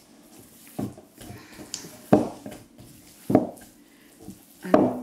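Soft kougelhopf yeast dough being kneaded by hand in a glass bowl, with raisins being worked into it: four soft thumps, about one a second, as the dough is pressed and turned against the bowl.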